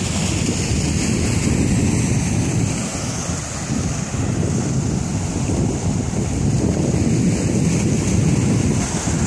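Wind buffeting the microphone in a steady low rumble, over small waves washing onto a sandy shore.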